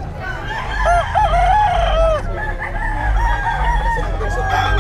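Several gamecocks crowing at once, their calls overlapping, loudest from about one to two seconds in, over a low rumble.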